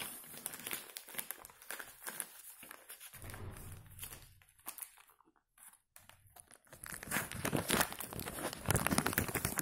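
Plastic poly mailer bag crinkling and rustling as a hand pulls it open around a book inside. It goes quieter for a moment about halfway through and is loudest near the end.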